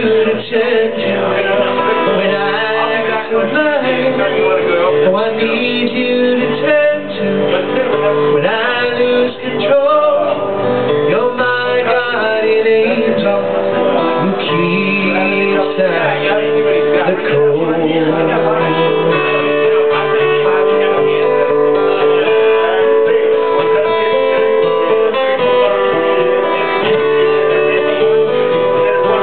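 Live acoustic guitar strummed steadily, with a man singing into a microphone.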